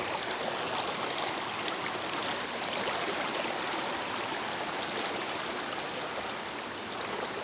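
Small clear stream running steadily: an even, continuous rush of flowing water.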